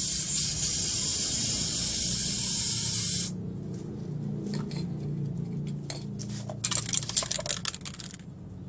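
Samurai aerosol spray paint can spraying in one steady hiss for about three seconds before cutting off sharply. Later comes a quick run of rattling clicks, typical of the mixing ball as the can is shaken.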